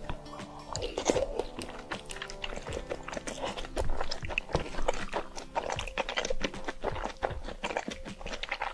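Close-miked chewing and biting of spicy instant noodles with shrimp and egg, many short wet clicks in quick irregular succession, over background music.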